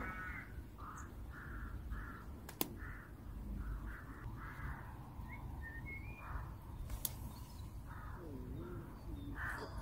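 Crows cawing: a run of short calls, about one or two a second, over a steady low rumble. Two sharp ticks come through, one about a quarter of the way in and one about three-quarters of the way in.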